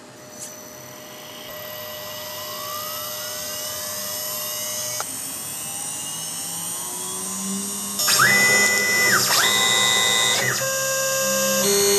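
The VFD-driven spindle of a Quick-CNC K6100a router spinning up after the program starts, a whine that rises steadily in pitch and grows louder as the drive ramps toward about 200 Hz, some 12,000 RPM. About eight seconds in, a louder series of sharp pitched tones begins that ramp up, hold, ramp down and step from note to note.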